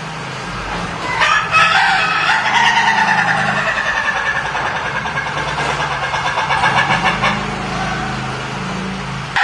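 Ayam ketawa rooster giving its long laughing crow: a rapid stuttering run of notes that starts about a second in and trails off over several seconds. A steady low hum runs underneath.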